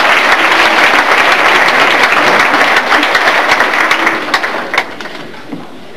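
Audience applauding: dense clapping that dies away about five seconds in.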